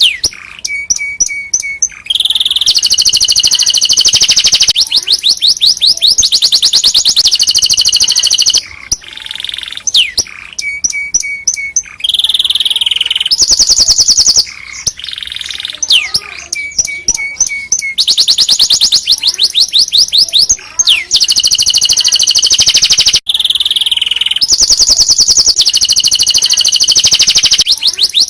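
Domestic canary singing loudly in a continuous song of rapid trills. It moves through phrases of fast repeated notes, each held for a few seconds before switching to a new one, with brief breaks between them.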